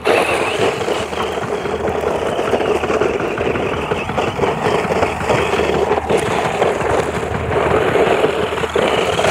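Battery-powered RC car running fast over loose dirt and gravel: a steady, rough rushing noise of tyres churning the ground, flecked with small clicks of stones.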